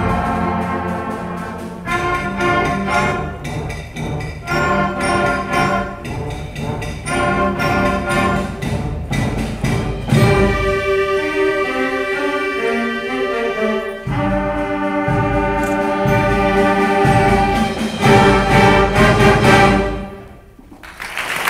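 Fifth-grade school concert band, woodwinds and brass, playing the closing bars of a piece. It builds to a loud final chord that breaks off about a second before the end.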